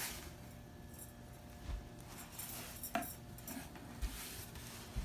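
A few light knocks and clicks, about a second apart, from objects being handled during unpacking.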